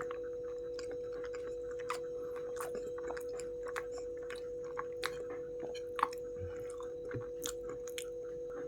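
Close-miked chewing of soft, creamy macaroni and cheese: irregular wet mouth clicks and lip smacks. Under it runs a steady electrical hum.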